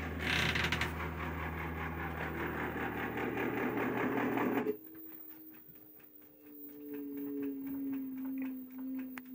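Drain pump of an LG washer-dryer combo running with a loud, steady mechanical hum, louder than normal, which the owner hopes is only because the top panel is off. The hum cuts off suddenly about halfway through, leaving a quieter steady whine from the machine that slowly falls in pitch and grows louder.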